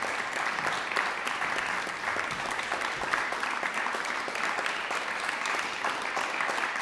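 Steady applause: many hands clapping at once in a dense, even patter.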